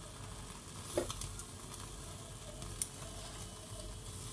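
Marinated kebab skewers sizzling in a wire grill basket over an open flame, nearly cooked, with a couple of faint crackles.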